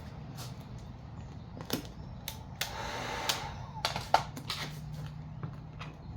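Vinyl wrap film being handled and pressed onto a car bumper: scattered sharp clicks and crackles, with a short rustling stretch near the middle, over a low steady hum.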